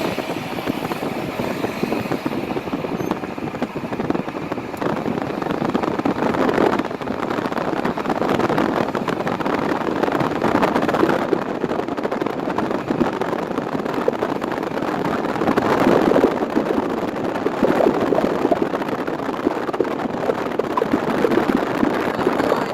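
Steady road and tyre noise of a car driving along a highway, swelling a little now and then.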